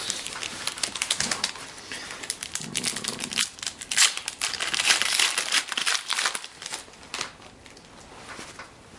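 Rapid crinkling and rustling of a hockey card pack's wrapper and the cards being handled, busiest around the middle and dying down for the last couple of seconds.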